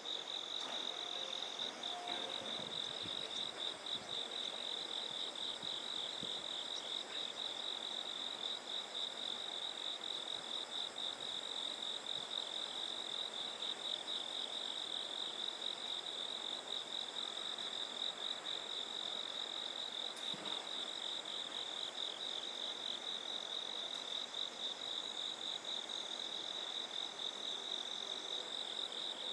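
Insects trilling steadily at a high pitch, a fast, even pulse that keeps up without a break.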